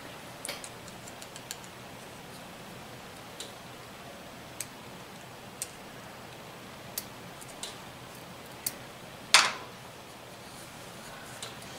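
Light, scattered metallic ticks and clicks of a thin piston ring being worked by hand and with a pick into its groove on a piston, with one sharper, louder click about nine seconds in.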